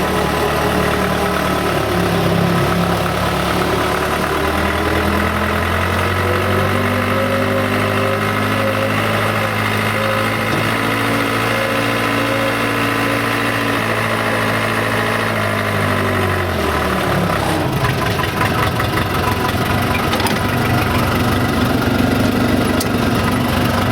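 Case 580C loader-backhoe's four-cylinder diesel engine running as the machine is driven. The engine speeds up about five seconds in, holds steady, then drops back to a rougher, rattly idle about two-thirds of the way through.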